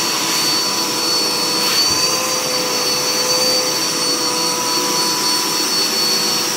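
Dirt Devil Power Max Pet upright vacuum running steadily, with a high motor whine over the rush of air. It is sucking through its hose tool.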